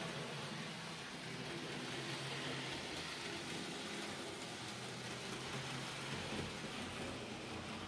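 N-scale model freight train running along the track: a steady rushing whir of wheels on the rails and the small locomotive motor, a little louder about two to four seconds in as the train passes close.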